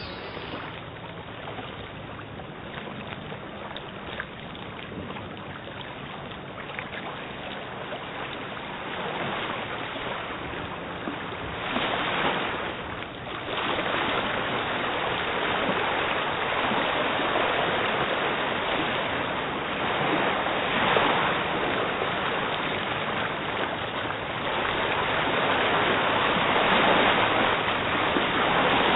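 Rushing river water: a steady noisy rush that swells louder several times.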